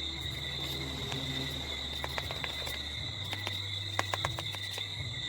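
Steady high-pitched chirring of crickets, holding an unbroken tone, over a low hum, with a cluster of sharp clicks and taps between about two and four and a half seconds in.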